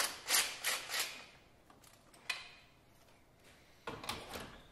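Ryobi cordless power tool run in short bursts on a gearbox bell housing bolt, about four quick bursts in the first second, a single click a little after two seconds and another short burst near four seconds.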